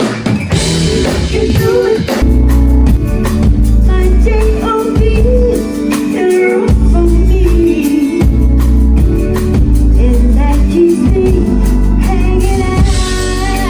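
A live band playing a funk/R&B groove at a sound check, with drum kit, electric guitar and a heavy bass line, and a voice singing over it.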